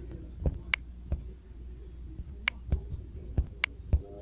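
About eight irregular sharp clicks and taps, some bright and ringing, with a heavier knock near the end, over a steady low hum.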